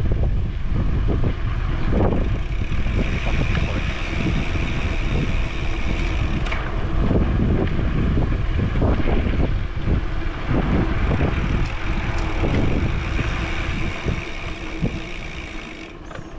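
Wind buffeting the microphone of a moving bicycle, with tyre rumble over cracked asphalt; it eases off over the last couple of seconds as the bike slows.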